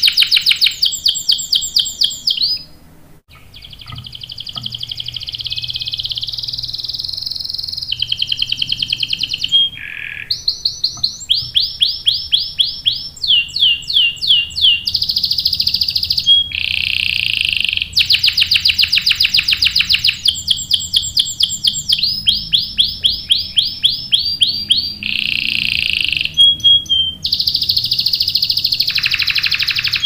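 Canary singing long rolling trills: phrase after phrase of very fast repeated notes, each run at a different pitch, with a short break about three seconds in.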